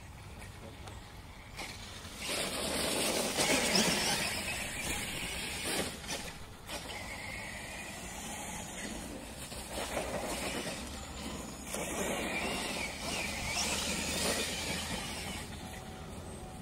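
Kyosho Mad Force VE electric RC monster truck's brushless motor whining in two long spurts, the pitch rising and falling as it drives up the leaf-covered dirt hill, with tyre noise.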